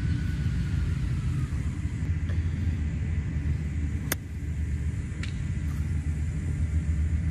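A steady low rumble, with one sharp click about four seconds in as a golf club strikes the ball on a short 40-yard pitch shot.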